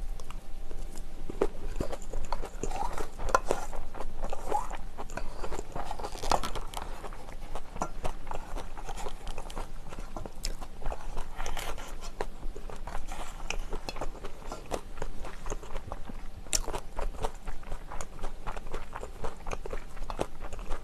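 Close-up chewing of a mouthful of herring-roe bibimbap, with many small, sharp crunching clicks throughout that become busier near the end.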